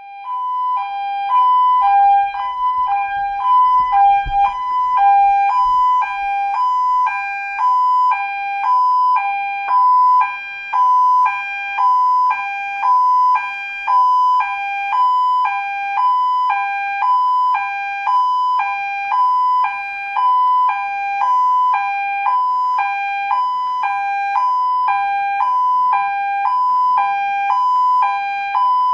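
Police car's two-tone siren sounding continuously, switching back and forth between a low and a high note about once a second, with a brief low rumble a few seconds in.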